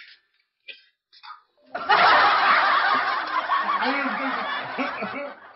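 A few brief soft clicks, then laughter for about three and a half seconds, in short repeated bursts.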